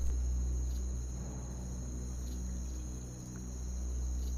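Steady, high-pitched insect chirring over a low, steady drone.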